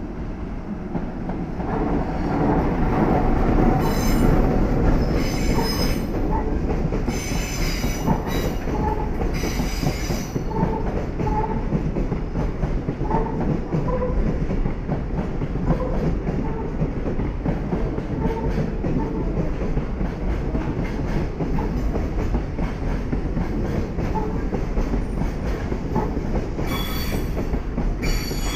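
EF66 electric locomotive and a long train of container wagons rolling past: a steady rumble that builds over the first few seconds as the locomotive goes by. Wheels squeal high-pitched a few times in the first ten seconds and again near the end.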